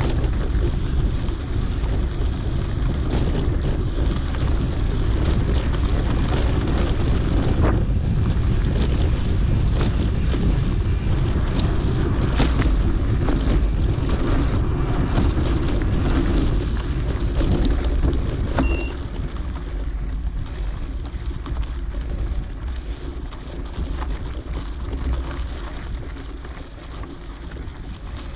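Wind rushing over a GoPro's microphone as a mountain bike rides a dirt trail, with frequent clicks and rattles from the bumps. There is one short high beep about two-thirds of the way through, and the rush eases off near the end.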